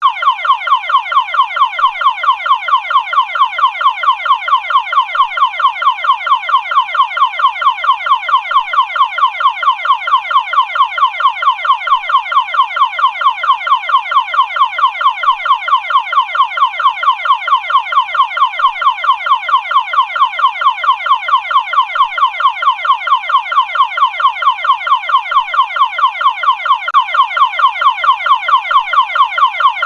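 Electronic warning alarm: a loud, shrill tone pulsing rapidly, several sweeps a second, repeating evenly without change.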